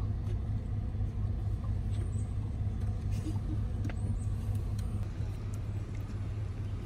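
Van engine running with a steady low hum, heard from inside the cabin, with a few faint clicks.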